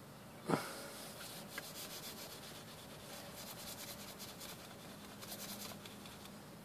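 A sharp click, then an applicator from a rear-view mirror adhesive kit rubbing and scrubbing on windshield glass in many quick short strokes. This is the coat that is left to dry for two minutes before the mirror mount goes on.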